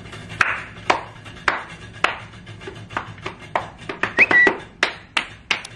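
Prize wheel spinning, its flapper clicking against the pegs in a run of sharp separate clicks, about two a second at first and coming closer together later on. A short high chirp sounds about four seconds in.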